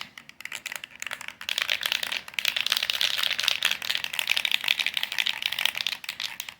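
Aerosol can of spray paint and primer being shaken, its mixing ball rattling rapidly and continuously.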